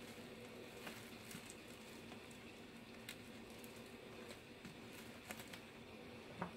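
Faint, scattered small clicks and crinkles of bubble wrap and tape being handled as the bubble wrap is pressed and taped down, the sharpest click near the end.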